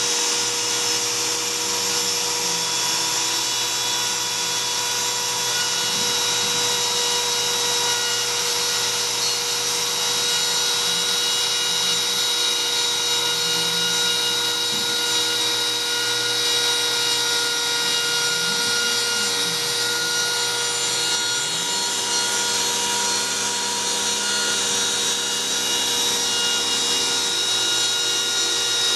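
Homemade CNC router cutting carbon fiber sheet: the spindle runs with a steady high whine and hiss of the bit milling. Lower motor tones rise and fall in pitch now and then as the machine's axes move.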